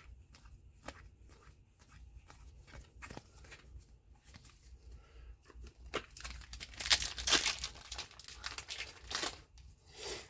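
A foil trading-card booster pack wrapper being torn open and crinkled, loudest from about six seconds in, after a few seconds of light clicks from cards being handled.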